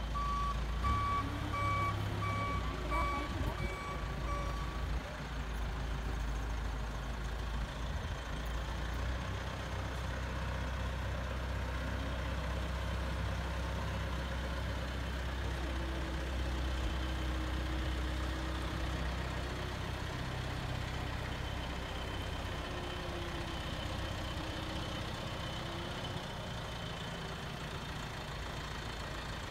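A vehicle's reversing alarm beeps at a steady pace and stops about five seconds in, over the low rumble of a large vehicle's engine running, which carries on after the beeping ends.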